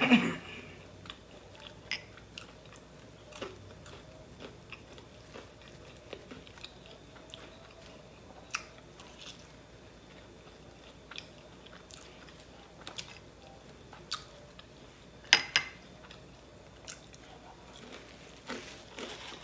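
A person chewing buffalo wings and waffle fries close to the microphone, with soft wet mouth clicks and smacks at scattered moments. The loudest smack comes about fifteen seconds in.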